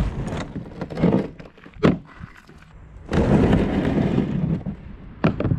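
Plastic kayak being handled and set down: knocks and thumps on the hull, one sharp bang about two seconds in, then a stretch of scraping noise and a last knock near the end.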